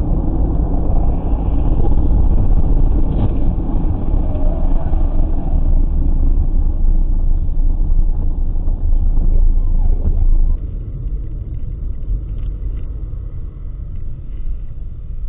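Low rumble of a moving car, with road and engine noise picked up inside the cabin by a dashboard camera's microphone. About ten seconds in it drops to a quieter rumble with a few faint clicks.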